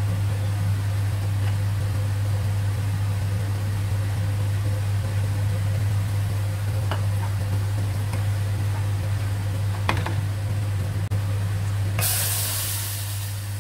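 Onions frying in ghee in an aluminium pot over a steady low hum, with a wooden spoon knocking against the pot a few times as they are stirred. About twelve seconds in, boiling water is poured onto the hot onions and hisses loudly.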